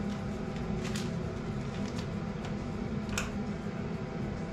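Plastic bags being handled while injectors are packed, giving a few short crinkles about a second apart, over a steady low hum.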